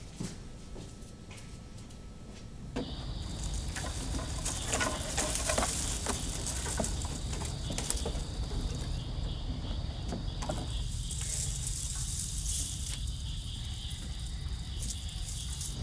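Outdoor insect drone, a steady high buzz like crickets or cicadas, setting in about three seconds in over a low rumble, with scattered clicks and footsteps on wooden boards.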